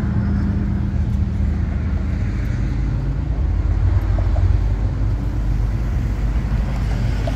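A car engine idling steadily nearby, a low, even hum and rumble.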